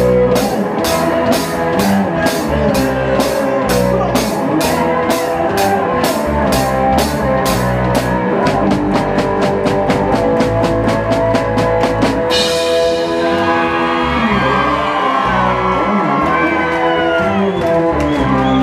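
Drum kit played along to a rock song with guitar, with steady cymbal strokes that quicken about eight seconds in. The cymbals stop about two-thirds of the way through, and the song carries on.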